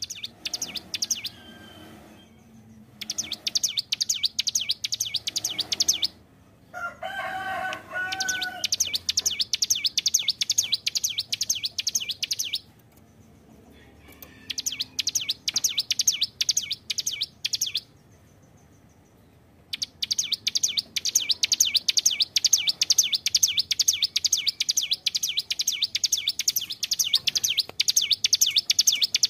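Ciblek gunung, a small prinia songbird, singing in full voice: long bouts of fast, rapidly repeated high chirping notes broken by short pauses. A brief lower call sounds about seven seconds in.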